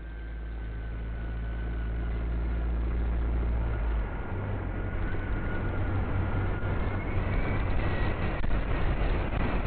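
Superbike engine running, fading in and growing steadily louder; its low steady note changes about four seconds in, and a thin whine rises toward the end.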